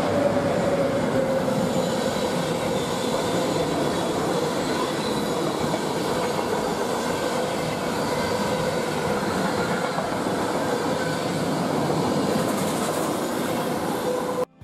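An electric-hauled passenger train with vintage Rheingold coaches passes at speed: a steady rushing rumble of wheels on rail, with a thin whine held throughout that drops slightly in pitch as the locomotive goes by at the start. The sound cuts off abruptly at the end.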